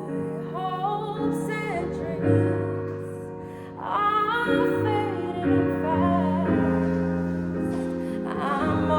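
Slow music: sustained piano or keyboard chords with a singer's voice coming in in phrases, about half a second in, about four seconds in and again near the end.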